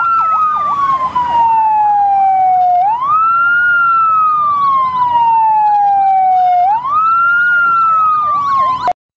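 Fire engine sirens. One wails in slow cycles, each falling for about three seconds and then sweeping back up in under a second, over a second siren yelping in fast up-and-down sweeps. Both cut off abruptly near the end.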